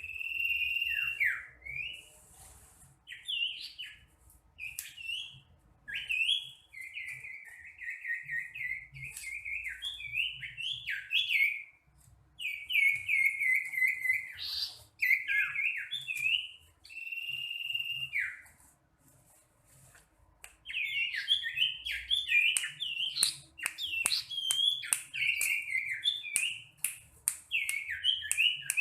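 Common iora (cipow) singing: a long run of clear whistled phrases, some held notes that slide down in pitch, with short pauses between groups and a faster run of quick notes in the last third.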